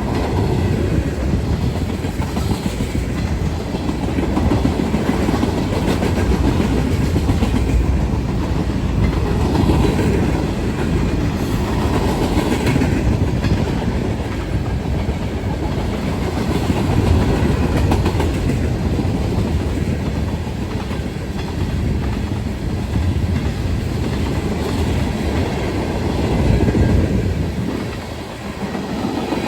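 Manifest freight train's cars rolling past, their steel wheels clicking and clacking over the rail joints with a steady rumble.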